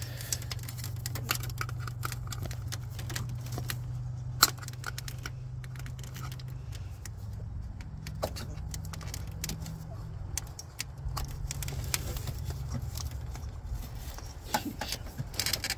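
Pliers clicking and scraping against a plastic-bottomed CVT transmission filter and its metal housing as the filter is wiggled loose. The clicks are small and irregular, with one sharper click about four seconds in and a steady low hum underneath.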